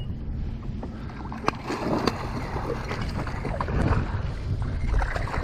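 Water splashing as a small channel catfish thrashes at the surface beside a boat while it is netted, with wind rumbling on the microphone. A few sharp clicks stand out, about one and a half, two and four seconds in.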